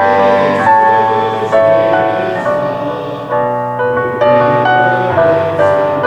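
Piano playing a hymn tune in full chords, a new chord struck about every half second to second, each one fading away.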